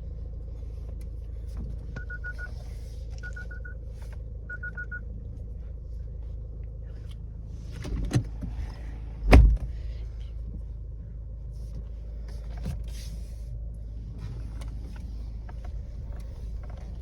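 Mahindra XUV 3XO's warning chime sounding three short groups of rapid high beeps, a little over a second apart, over the steady low rumble of the car running. A loud thump follows about halfway through.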